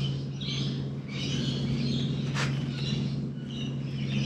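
Birds chirping and calling in short repeated bursts over a steady low hum, with one soft click a little past halfway.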